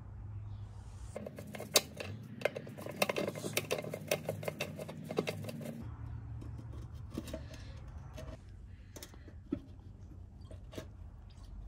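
Fuel tank and mounting screws of a Briggs & Stratton 6B-SF small engine being unfastened and worked loose by hand, making rapid metallic clicks and clinks. About six seconds in they thin to a few scattered clinks as the tank comes free.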